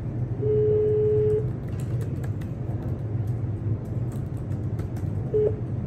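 Telephone ringback tone of an outgoing call: one steady ring of about a second, then a brief start of a second ring near the end, over a steady low hum.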